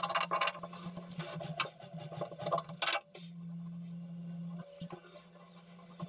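A paintbrush dabbing and stroking resin into fibreglass cloth, heard as a quick run of soft taps and scrapes that stops about three seconds in. A steady low hum runs underneath.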